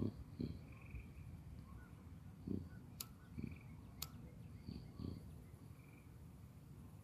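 Faint outdoor evening ambience: short trilled animal calls repeating every second or two, over soft low thumps. About three seconds in come two sharp clicks a second apart.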